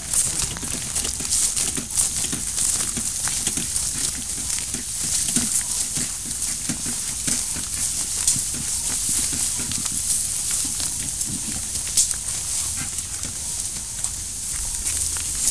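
Footsteps and rustling of several people walking through grass and into brush, a scatter of irregular soft knocks, over a steady high-pitched hiss.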